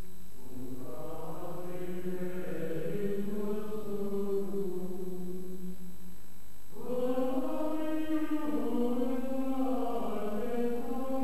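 Choir chanting slow, sustained plainchant phrases, with a louder phrase entering about seven seconds in.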